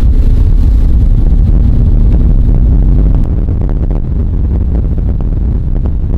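Motorboat running at speed across the water, a loud steady low rumble of outboard motor and wind buffeting the microphone.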